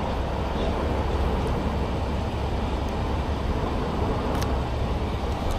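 Steady low rumble of motor vehicles, with one faint click about four and a half seconds in.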